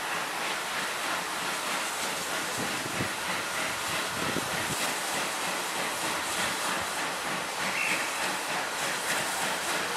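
Bulleid light pacific steam locomotive 34052 standing with a steady hiss of escaping steam.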